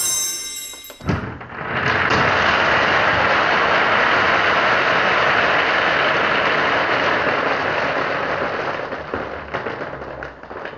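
A thump, then a mass of small plastic beads pouring and rattling out in a steady, dense clatter like rain, fading near the end.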